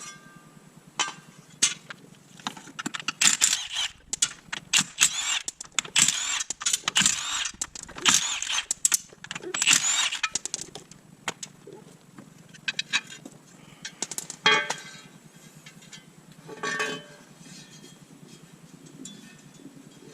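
Power wrench spinning the flex plate bolts off the crankshaft in a string of short bursts through the first half, followed by a few scattered metal clinks of bolts and tools.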